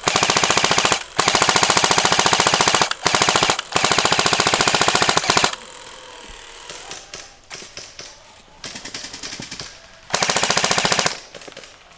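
Airsoft gun firing full-auto: long strings of rapid BB shots, four bursts in the first five and a half seconds and a short one near the end, with fainter, more distant airsoft fire in between.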